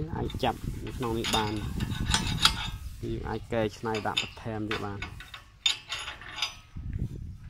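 Clinks and scrapes of metal on metal as welded steel tractor frame parts are handled, with a man's voice speaking at times in between.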